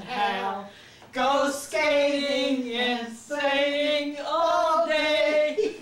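Elderly women singing an old children's song about Dutch boys and girls, unaccompanied, in long held, wavering notes, with a short break about a second in.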